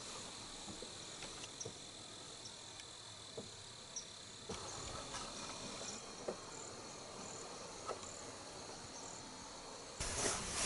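Faint, steady, high-pitched insect trill from the woods, with scattered soft ticks. A louder breathy whisper starts near the end.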